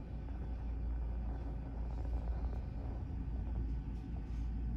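Steady low rumble of room background noise, with no distinct events.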